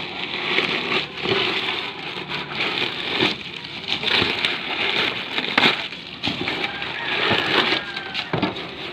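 Dry leaves and wet gutter muck crackling and rustling as they are grabbed and pulled by hand from a metal roof gutter, in uneven repeated bursts with a few short knocks.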